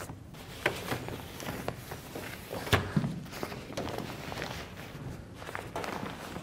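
Rustling and crinkling of a white protective cover being peeled off a car's raised bonnet, with scattered sharp snaps and ticks; the loudest snap comes a little under three seconds in.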